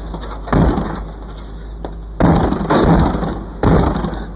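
Heavy kicks slamming against a front door: four loud bangs, two of them in quick succession, each with a short ringing decay. They are heard through a doorbell camera's microphone, over its steady hum and hiss.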